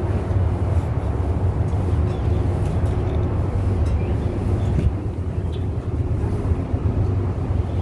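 Steady low mechanical rumble with a faint hum above it.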